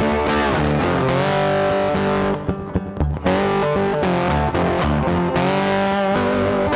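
Background music led by guitar, with sustained notes and a brief dip about two and a half seconds in.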